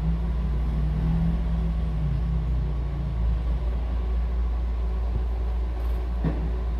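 Steady low background rumble, even in level throughout.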